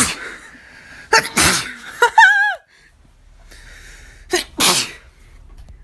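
Two sneezes, the first about a second in and the second about four and a half seconds in, each a short sharp burst with a quick lead-in. A brief wavering vocal sound follows the first sneeze.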